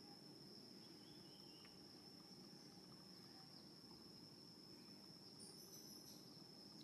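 Near silence: faint outdoor ambience with a steady high-pitched insect drone and a few faint, brief chirps.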